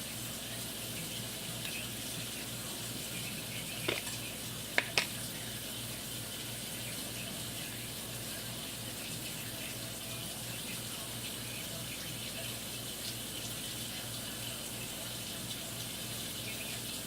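Steady background hiss with a faint low hum. A few sharp clicks stand out, one about four seconds in and two close together about a second later.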